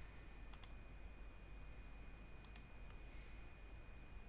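Faint computer mouse clicks over quiet room tone: two quick pairs of clicks, about two seconds apart.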